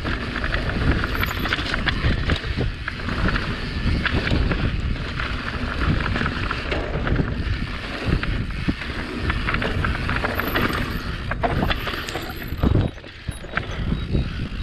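Mountain bike ridden fast down a rough dirt singletrack: tyres rolling over dirt and loose stones, with constant clattering and knocking from the bike and wind buffeting the microphone. The noise dips briefly near the end.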